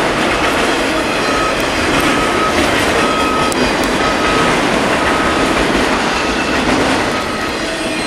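Freight cars of a long mixed-freight train rolling past at steady speed, their wheels running over the rails, with a short high tone repeating about once a second.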